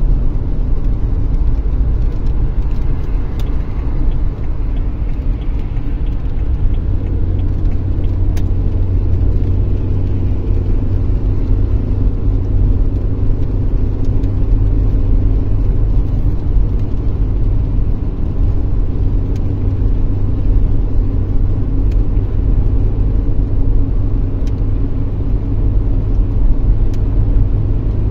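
Steady running noise of a car heard from inside the cabin while driving on a wet highway: a low rumble of engine and tyres that holds steady throughout.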